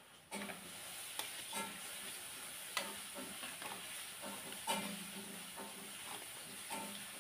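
Thin plastic food bags rustling and crinkling as they are handled and opened over a plastic cup, with scattered small clicks and taps throughout.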